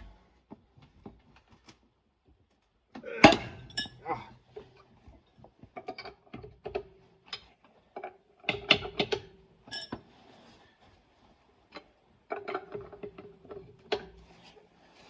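Irregular metallic clinks and knocks of a lug wrench (tire iron) being fitted to and worked against a Jeep wheel's lug nuts to break them loose, with one sharp knock about three seconds in and a held tone of a few seconds twice.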